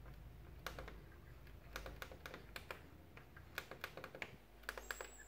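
Plastic buttons on the equalizer cursor-control pad of a Sony LBT-V550 hi-fi stack being pressed over and over: a string of faint, irregular clicks, some in quick pairs.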